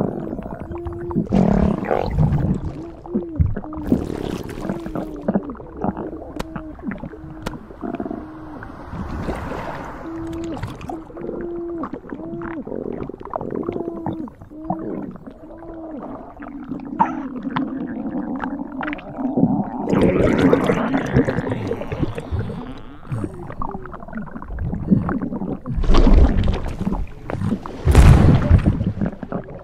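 Sound-effect belly gurgling and groaning from a hugely swollen stomach: a long run of short pitched groans, about two a second, then a rushing slosh and two heavy deep rumbles near the end.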